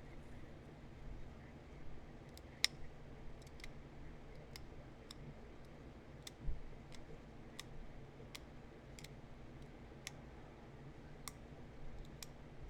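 Pressure flaking on a heat-treated chert point: small flakes snap off with sharp, crisp clicks at an uneven pace, roughly one every half second to second, as notches are worked into the point. One dull low thump comes about six and a half seconds in.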